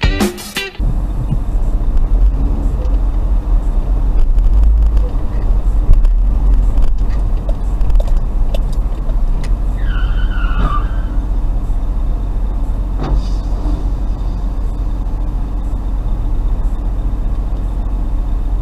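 A car's steady engine and road rumble recorded from inside the moving vehicle, with a few faint knocks and a brief chirp about ten seconds in.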